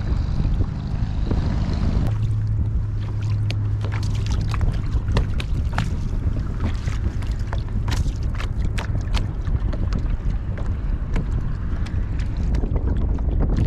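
Wind rumbling on the microphone aboard a kayak on open water, with many scattered sharp clicks and ticks.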